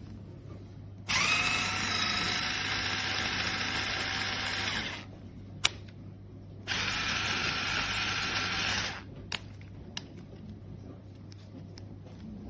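Small 3.6 V cordless electric screwdriver running twice with a steady whine, first for about four seconds, then after a pause for about two seconds. A sharp click falls between the runs, and a couple of light clicks follow.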